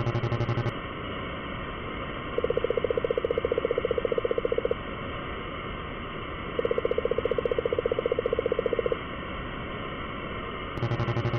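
Retro video-game dialogue blips sounding as text scrolls into a speech box: rapid, evenly spaced beeps. A low, buzzy run ends under a second in and starts again near the end, and a higher-pitched run plays twice in the middle for about two seconds each, over a steady background hiss.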